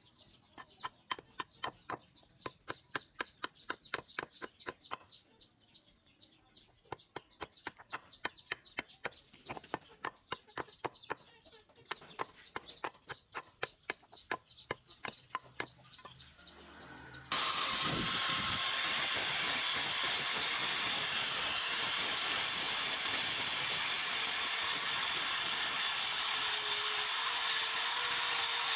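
A metal blade scraping shavings off a wooden piece in quick, regular strokes, about two to three a second. About seventeen seconds in, this gives way abruptly to a louder, steady angle grinder, its abrasive disc grinding a small steel razor blade.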